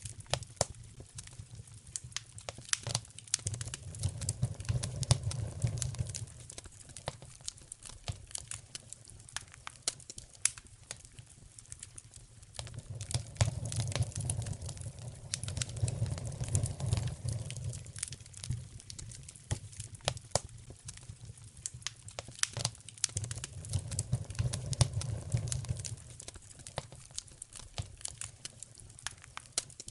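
Wood fire in a fireplace crackling, with frequent irregular sharp pops and snaps. Underneath, a low rumble swells and fades three times.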